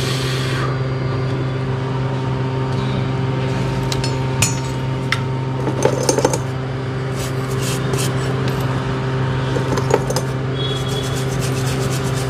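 Steady hum of running repair-bench equipment, with scattered light clicks and taps of small tools, and a quick run of ticks near the end.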